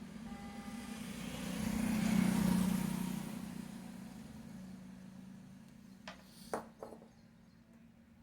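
A road vehicle going past, its noise swelling to a peak about two seconds in and then fading, over a steady low hum. Near the end there are three short, sharp clicks.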